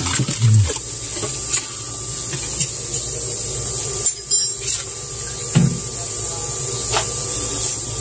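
A styrofoam cover panel is worked loose and pulled off a refrigerator's freezer wall, giving a few scattered scrapes and knocks over a steady hiss.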